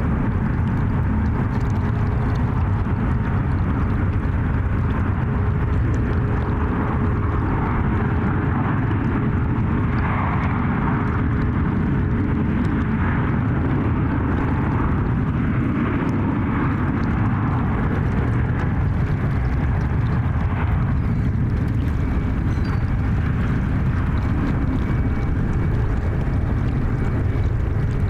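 Airbus A350's jet engines, a steady loud rumble from the airliner passing the runway.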